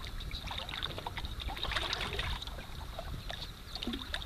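Wind rumbling on the microphone, with faint small water splashes and scattered light ticks.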